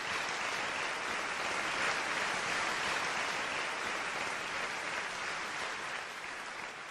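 Large audience applauding steadily; the applause fades out near the end.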